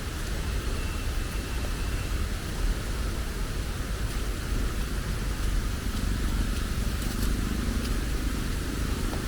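Steady rain ambience: an even hiss of falling rain over a low rumble of road traffic.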